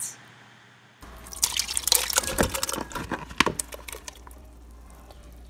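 Sugared strawberry halves and their syrup, macerated overnight, being poured from a plastic bowl into a metal saucepan: a run of wet plops and splashes starting about a second in and thinning out after about four seconds.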